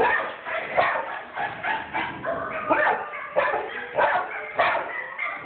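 Dogs barking and yelping in quick succession, a sharp bark every half second or so, from a TV commercial's soundtrack played through the television's speakers.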